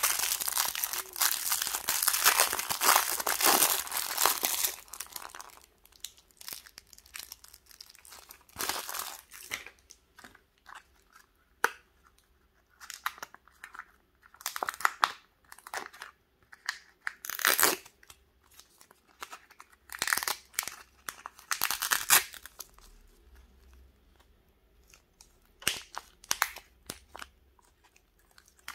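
Thin clear plastic wrapper crinkling and tearing continuously as it is pulled open, then short separate bursts of crinkling as the foil seal of a Kinder Joy egg half is peeled back.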